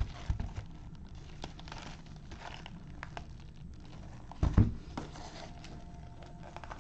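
Plastic shrink wrap on a sealed hobby box of trading cards crinkling as gloved hands handle and unwrap it, with a light knock near the start and a louder thump about four and a half seconds in.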